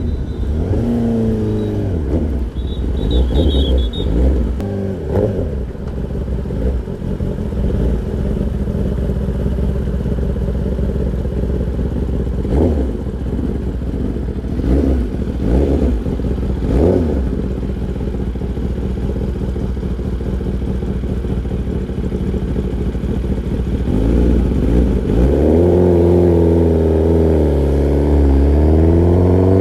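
Kawasaki ZX-10R's inline-four engine through an Arrow Pro-Race exhaust, idling between several short throttle blips. Near the end it is revved up and held, its pitch sagging and then climbing again.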